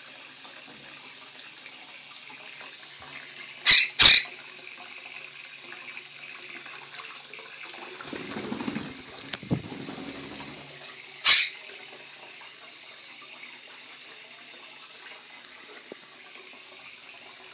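Tap water running steadily into a bathroom sink while a quaker parrot bathes under it, with a flurry of splashing and wing-flapping in the water a little before halfway. Three short, loud, sharp sounds stand out: two in quick succession about a quarter of the way in and one a little past halfway.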